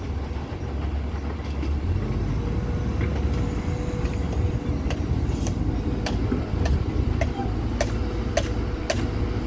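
Heavy diesel machinery running with a steady low rumble and a steady whine. From about halfway through come sharp metallic clanks, roughly twice a second.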